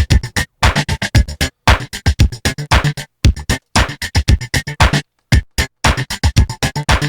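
Electronic show music with a fast, chopped drum-machine beat and synthesizer, stopping dead for short moments several times.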